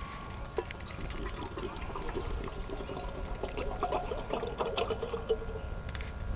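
Water poured from a plastic bottle into a kettle for tea, a steady trickling pour that starts about half a second in and stops about five seconds in.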